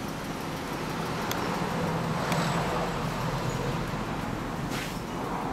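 Honda NSR250R's two-stroke V-twin idling steadily through a Dog Fight R aftermarket exhaust, swelling a little in the middle.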